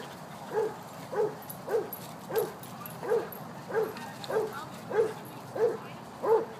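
A dog barking over and over at an even pace, about three barks every two seconds.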